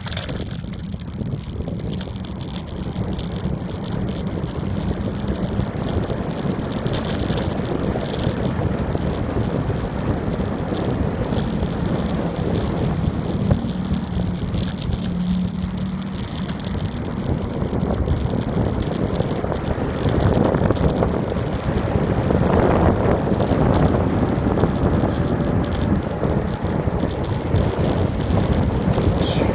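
Rushing wind and tyre noise from a bicycle descending a paved road, growing louder as it picks up speed.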